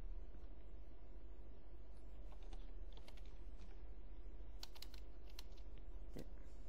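Keys being typed on a computer keyboard in short, scattered clusters of clicks, over a steady low hum.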